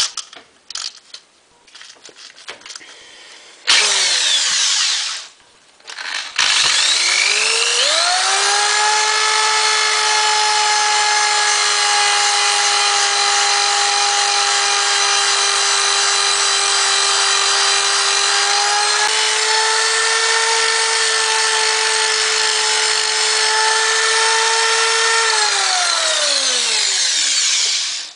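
Electric power tool fitted with a Scotch-Brite abrasive disc, scouring rust off a steel rifle barrel. A short burst first, then the motor whines up to a steady speed, runs for about twenty seconds and spins down near the end.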